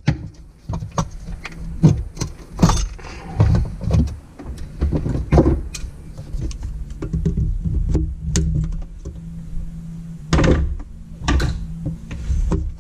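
Irregular clinks and knocks of hand tools and metal parts as fasteners are worked on in a Sea-Doo jet ski's engine bay, over a steady low hum.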